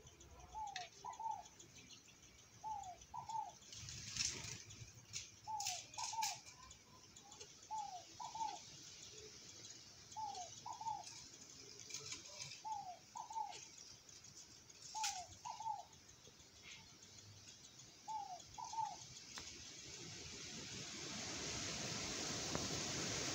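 Diamond dove cooing softly: a short two-note coo, each note falling slightly, repeated about every two seconds. A few sharp clicks sound in between, and a steady hiss rises near the end.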